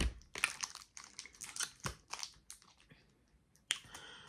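Plastic wrapper of a mini Kit Kat crinkling in the fingers as it is opened: short irregular rustles and crackles, with a brief quiet stretch about three seconds in.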